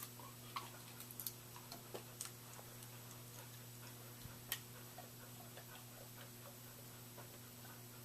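Quiet room with a steady low hum and scattered faint clicks and ticks, a few sharper ones in the first half.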